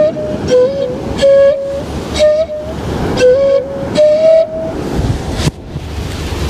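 Seruling, a Malay bamboo flute, playing a slow melody in short phrases of a few notes each, stepping up and down with short breaths between, and stopping about five seconds in. Under it is the steady wash of sea surf.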